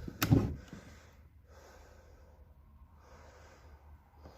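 A man's short, sharp exhale or snort in a small room, with a click at its start, followed by faint room noise.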